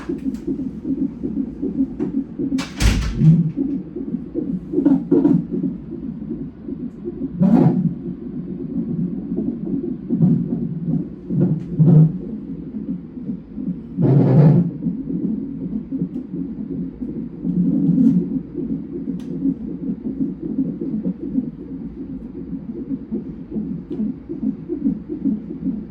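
Fetal heart monitor's Doppler ultrasound playing the twins' heartbeats as a fast, pulsing whoosh during a non-stress test, with several louder thumps along the way.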